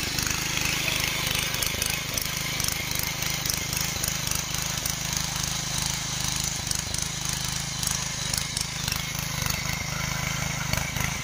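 Small single-cylinder petrol engine of a walk-behind mini power weeder running steadily under load as its rotary tines churn through grassy soil, with a rapid, even low pulsing.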